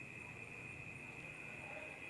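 Faint background hiss with a steady high-pitched whine.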